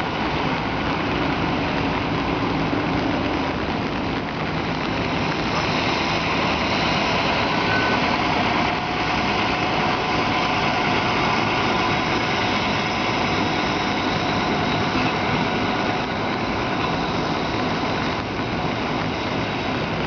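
Steady diesel engine running on a heavy tow truck as it tows a trolley bus, under a broad, even hiss.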